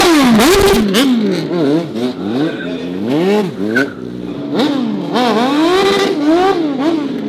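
Stunt sportbike's engine revved hard over and over, the pitch swooping up and down about twice a second, with a loud rasping first second and a briefly held pitch near the end.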